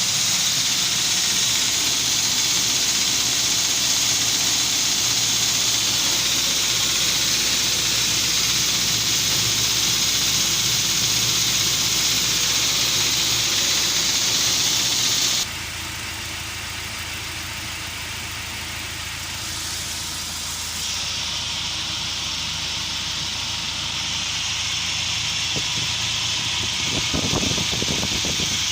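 UAZ Patriot engine idling steadily, run to show an engine knock. About halfway through, the sound abruptly drops in loudness and turns duller.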